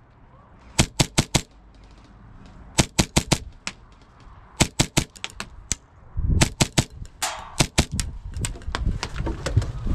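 Airsoft guns firing in quick strings of four or five sharp shots, a fresh string every second or two. A low rumble builds from about six seconds in.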